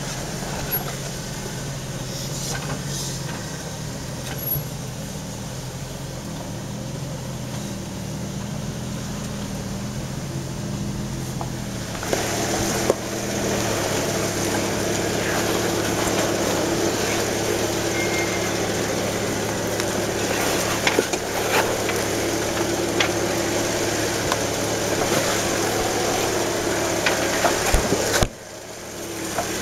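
4x4 engine running steadily at low speed while crawling a rocky trail. About twelve seconds in it grows louder, joined by the crunch and crackle of tyres over rocks and dry leaves, with scattered sharp clicks.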